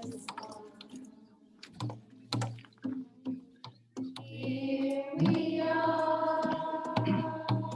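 Singing voices holding long, steady notes through the second half, after a stretch of scattered sharp clicks and taps.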